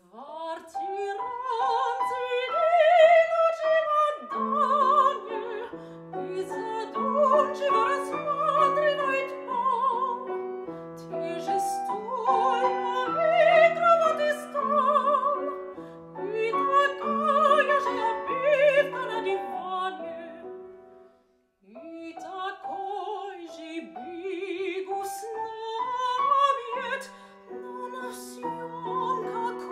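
Lyric soprano singing a classical art song with a wide vibrato, accompanied by a Steinway grand piano playing evenly repeated low notes. Both break off briefly about two-thirds of the way through, then carry on.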